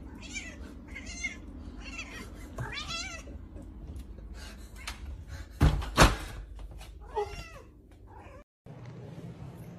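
A cat meowing repeatedly, with about six short meows, and two loud thumps close together about halfway through.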